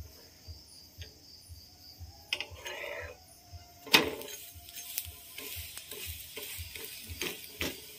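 Kitchen utensil work on a frying pan with a chickpea-flour pancake (besan chilla) being oiled: a short scrape, then a sharp knock of metal on the pan about four seconds in, followed by a light sizzle with scattered clicks.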